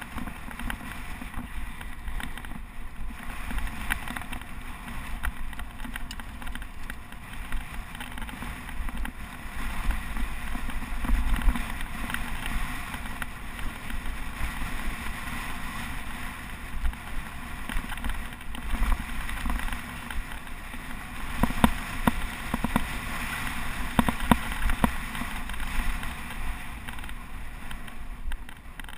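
Wind buffeting the microphone of a camera on a mountain bike riding fast over rough, tussocky moorland grass, with a low rumble from the tyres and frame over the bumps. A few sharper knocks come past the middle as the bike hits bumps.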